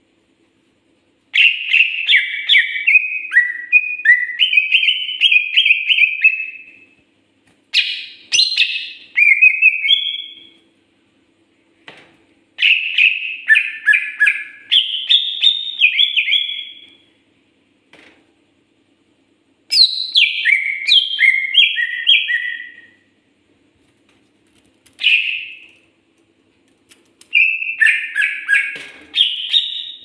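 Caged cucak ijo (greater green leafbird) singing: about six loud phrases of rapid, varied whistled notes, each lasting one to five seconds, with short pauses between them.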